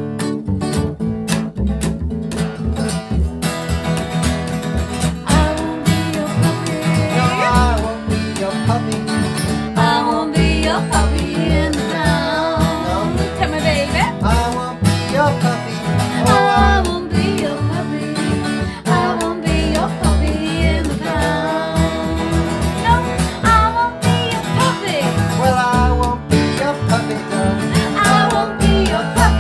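Live acoustic country-folk band playing a song: strummed acoustic guitar and plucked upright double bass, with singing voices coming in over them about four seconds in.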